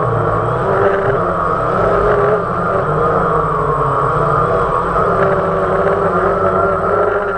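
Multirotor drone's electric motors and propellers whining steadily, with several pitches that waver slowly up and down as the motors adjust speed.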